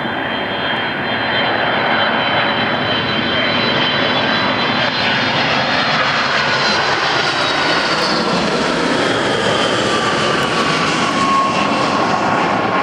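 Boeing 757-200 airliner's twin Pratt & Whitney PW2037 turbofans on landing approach: a loud, steady jet rush with high whining tones, and a lower whine that slowly drops in pitch through the second half as the plane passes.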